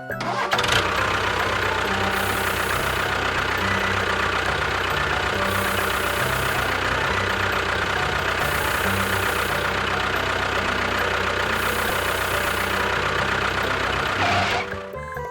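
Engine running steadily with a fast, even chatter. It starts about half a second in and cuts off near the end, over low tones that change in steps.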